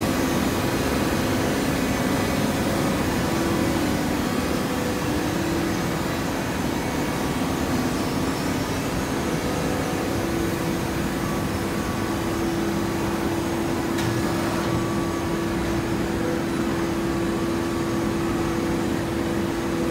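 Hydraulic horizontal baling press running, giving a steady machine hum with a low tone and no separate strokes.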